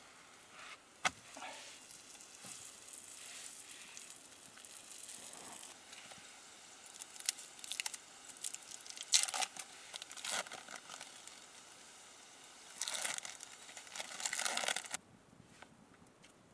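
Handling and cooking sounds of a flatbread on a hot stone slab over a wood fire: scattered crackles and rustles with a sharp click about a second in. A denser rustling stretch near the end stops suddenly.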